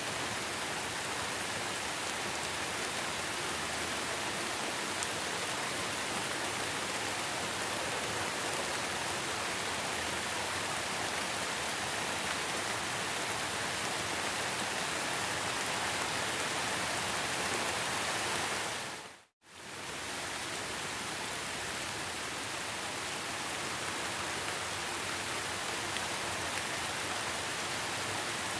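Heavy rain falling in a steady, dense hiss. About two-thirds of the way through it fades out to silence for a moment and straight back in.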